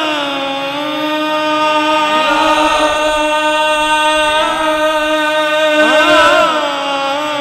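Qawwali music: a harmonium holds sustained notes while a singer's voice glides and bends through long wordless held notes, with no drum beat.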